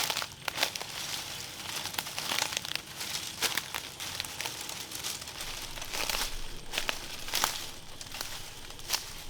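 Irregular crinkling and rustling, with many short sharp clicks and snaps scattered through it.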